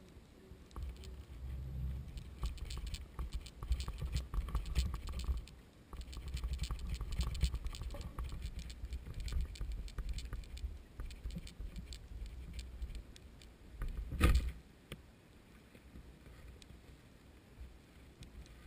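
Underwater sound from a GoPro in its waterproof housing as it is lowered to the sea floor: a low rumble of water moving past the housing, with many small clicks and ticks, and one loud knock about fourteen seconds in.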